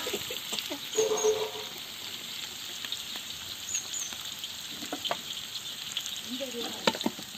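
Sliced shallots, green chillies and whole spices frying in hot oil and dalda in a large aluminium pot: a steady, high sizzling hiss with a few sharp crackles.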